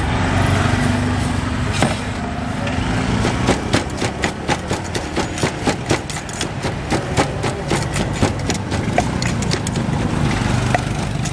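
Wooden pestle pounding shredded green papaya salad in a clay mortar: sharp, regular knocks at about three a second, starting about three seconds in. A steady low engine hum runs underneath.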